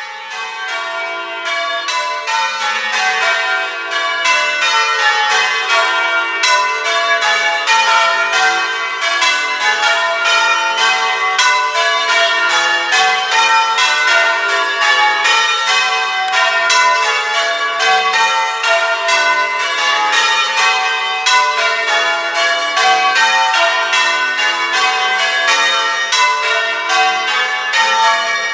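Church tower bells in full-circle change ringing: a ring of bells struck one after another in rapid, even succession, their rows of changes running on without a break. The sound fades in from silence at the start.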